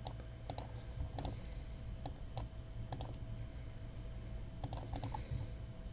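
Computer mouse clicking while working in a spreadsheet: about a dozen short sharp clicks, several in quick pairs, scattered irregularly over a low steady hum.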